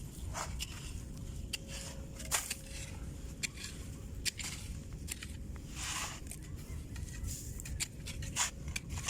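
Shovel digging into beach sand, irregular short scraping crunches about once or twice a second, over a steady low rumble.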